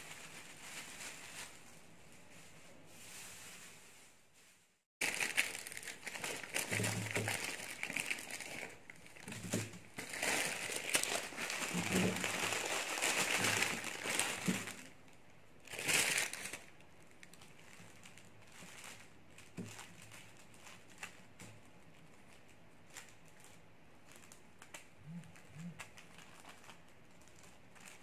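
Clear plastic bag crinkling as it is handled and pulled over a tray of dried henna leaves. The sound cuts out briefly about five seconds in, then comes back as a dense, crackly stretch through the middle before it quietens down.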